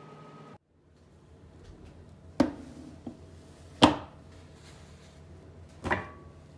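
Three sharp knocks, about a second and a half to two seconds apart, with a faint tap between the first two, over a low steady hum.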